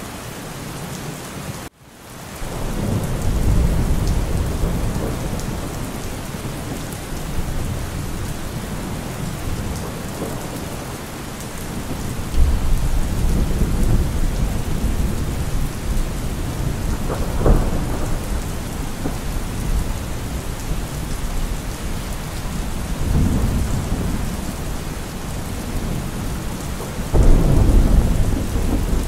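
Steady rain during a thunderstorm, with deep, rolling thunder rumbles that swell and fade several times; the loudest rumbles come about twelve seconds in and near the end. The sound cuts out briefly about two seconds in.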